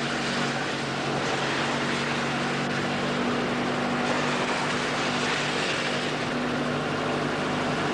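A car driving, heard from inside its cabin: a steady mix of road and wind noise over a steady low engine hum.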